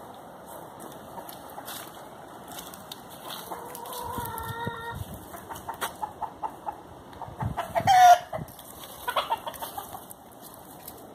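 Chickens clucking and calling in their pens: a held call about four seconds in, a run of short clucks, and a loud, brief squawk about eight seconds in.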